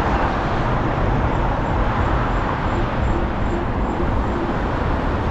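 Steady road noise from a car travelling on a busy freeway: tyre and engine rumble with rushing air and surrounding traffic.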